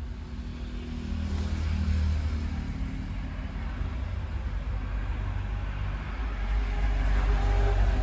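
A motor vehicle engine running with a low, steady rumble that swells about two seconds in and again near the end.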